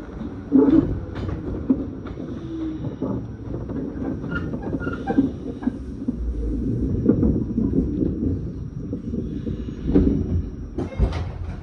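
Passenger train running, heard from inside the car: a steady low rumble with irregular sharp clicks and knocks from the wheels and running gear, and a few brief higher squeaks.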